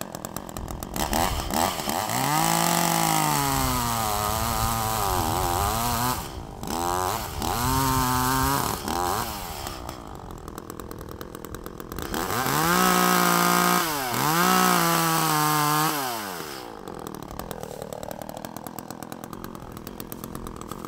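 Echo CS-400 two-stroke chainsaw idling, then revved up and cutting into the base of a small tree trunk in two spells, its pitch rising and dipping as the chain bites. It drops back to a fast idle between the cuts and at the end. The cuts make the felling notch that sets which way the tree falls.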